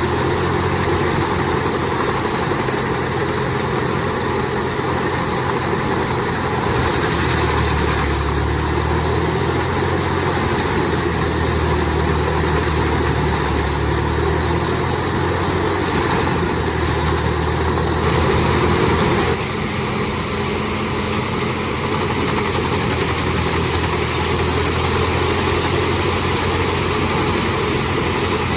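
Heavy engine of a wood chipper running steadily with a constant low hum and a rough, noisy grind over it; the sound changes a little about 19 seconds in.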